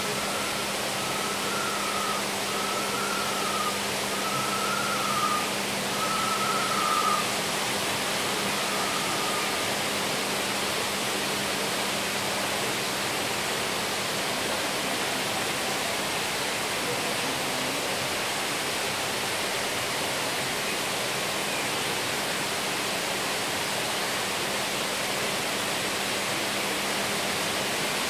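Steady rushing background noise with a faint low hum underneath. In the first ten seconds, a string of short whistled notes of similar pitch, some wavering, comes through it and then fades out.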